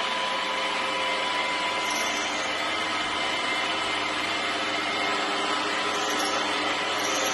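Klindex Extrema electric floor grinder running on a stone tile floor: a steady machine noise with a constant whine that does not change in pitch.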